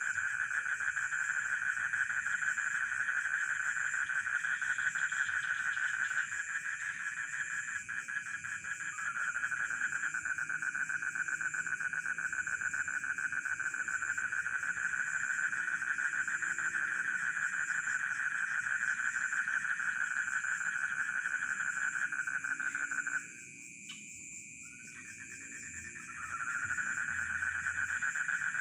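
A chorus of frogs and crickets: a dense, steady pulsing trill with a high, even chirping above it and lower croaks beneath. The main trill thins for a moment about seven seconds in. About 23 seconds in it stops abruptly, then picks up again about three seconds later.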